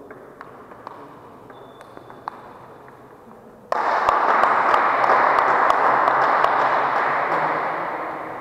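Table tennis rally: the ball clicks sharply off bats and table a few times. About four seconds in, sudden loud applause breaks out and fades near the end.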